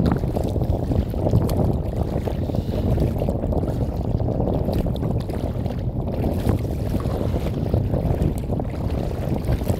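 Wind buffeting the microphone of a phone mounted on the bow of a kayak: a steady, gusting low rumble, with faint splashes of water against the boat.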